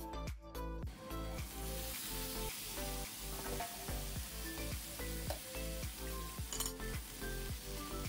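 Green beans sizzling in a hot nonstick frying pan, starting about a second in, as they are stirred with a ladle. Background music with a steady beat plays throughout.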